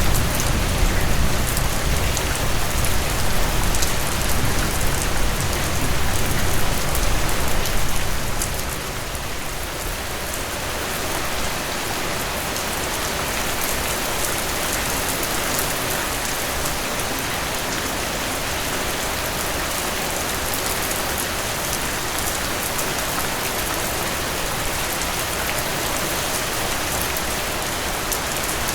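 Steady rain falling on a surface, a dense hiss with fine drop ticks. A deep low rumble sits under it for the first eight seconds or so and then fades away, leaving the rain alone and a little quieter.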